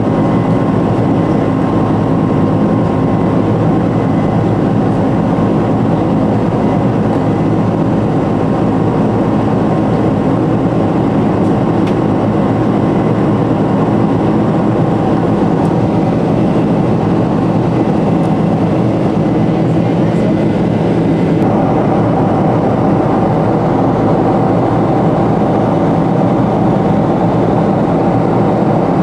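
Boeing 747 cabin noise during climb-out: steady jet engine and airflow noise heard from inside the cabin, with several steady hum tones. About three-quarters of the way through, one of the higher hum tones shifts slightly lower.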